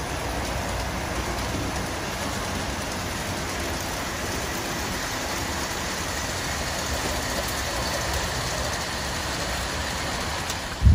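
Steady rolling noise of a G scale model train running along garden track, from its wheels and motors, with no onboard sound playing. A single knock comes at the very end as the noise cuts off.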